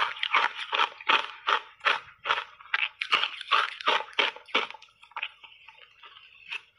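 Crunchy shaved ice coated in matcha tea and milk powder being chewed close to a clip-on microphone: a steady run of sharp crunches, about two to three a second, growing softer and sparser near the end.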